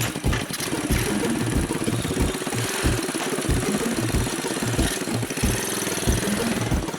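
Pitbike single-cylinder engine fitted in a Tula, running steadily after a carburettor clean and a new intake spacer.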